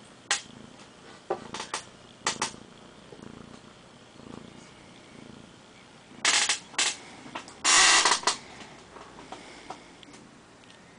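Tabby kitten purring softly while being stroked. Short rustling bursts break in several times, the loudest about six and eight seconds in.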